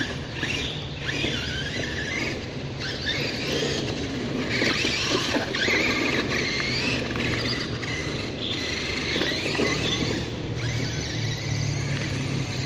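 Brushless electric motor of an RC monster truck (Turnigy XK-4074 2000KV on a 4S lipo) whining, rising and falling in pitch again and again as the throttle is worked while it drives.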